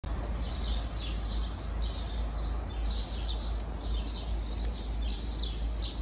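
Small songbirds chirping in short, high, quick notes, about twice a second, over a steady low rumble of outdoor city background.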